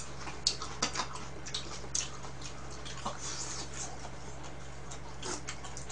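Eating sounds: scattered soft clicks and smacks of chewing, and of chopsticks tapping bowls and plastic containers, over a steady low hum.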